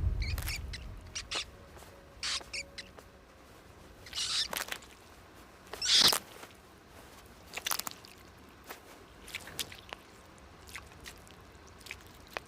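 Short scratchy rustles and scrapes of small animal movement at irregular intervals, the loudest about four and six seconds in.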